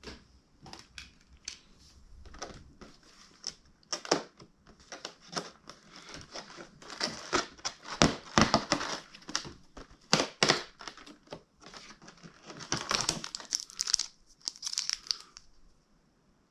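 Cardboard tearing and packaging crinkling as a Pokémon advent calendar's day-1 door is pushed open and a foil-wrapped booster pack is pulled out: a run of irregular sharp crackles and rustles, busiest in the middle and again near the end, stopping shortly before the end.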